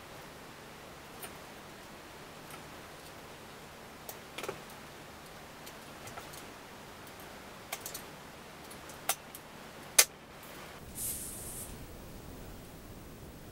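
Scattered clicks and snaps of a tyre lever and hands on the rim and spokes of an electric-assist bicycle's rear wheel, while a stiff e-bike tyre is levered over the rim. The sharpest snap comes about ten seconds in, followed by a short hiss.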